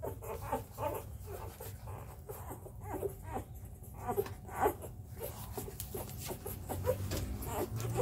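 Four-day-old Labrador puppies nursing and jostling for their mother's teats: many short squeaks and whimpers mixed with wet suckling clicks.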